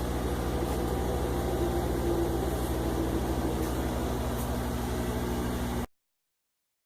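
Hobart 5801 meat saw's electric motor running with a steady low hum. The sound cuts off abruptly near the end.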